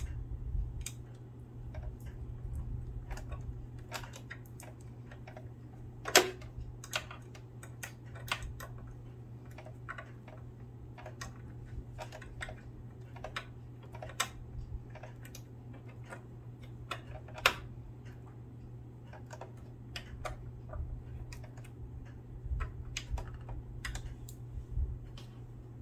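Irregular small clicks and taps of parts being handled and fitted back into a Singer sewing machine, with two louder knocks about six seconds in and again near the middle, over a steady low hum.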